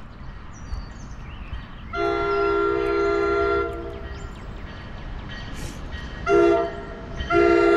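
Air horn of an approaching NJ Transit double-decker train sounding a chord of several notes at once in three blasts: long, short, then long, the last one held past the end.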